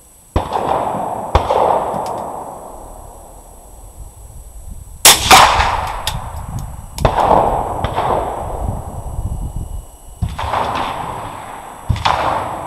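Gunshots on a shooting range, .22 rimfire rifle shots among them: about seven sharp reports, each followed by a long echoing decay. The loudest are a close pair about five seconds in. One shot near the end is a CCI Mini-Mag round that registers about 1317 fps on the chronograph.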